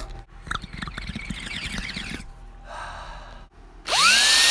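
A person breathing while drinking from a can, a short breathy hiss, then a power drill spinning up with a rising whine about four seconds in and running steadily at full speed.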